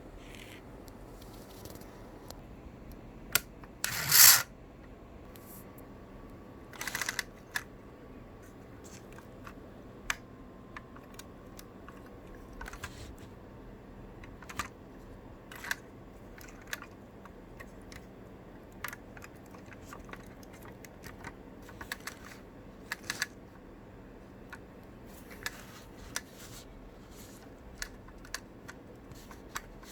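Handling noise from unboxing a diecast model van: scattered small clicks and taps of plastic and metal, with a loud rustle or tear of packaging about four seconds in and a shorter one around seven seconds.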